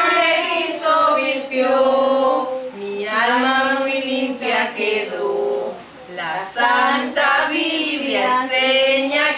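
A woman singing a Spanish children's gospel song unaccompanied, with young children's voices joining in, in short phrases of held notes.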